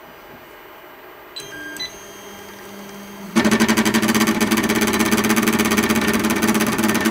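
Anycubic i3 Mega 3D printer: a few short touchscreen beeps, then from about three seconds in its stepper motors start a loud, steady, fast-pulsing buzz as the bed is driven backwards. The wire to the limit switch pulled out as the bed moved back, so the bed was not stopped at its end of travel.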